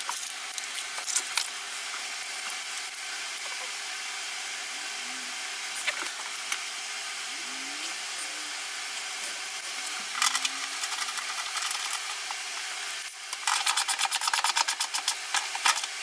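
Faint handling of the seat belt strap and hardware, then near the end a hand ratchet clicking rapidly for a couple of seconds as it runs the belt's M12 anchor bolt into the floor nut plate.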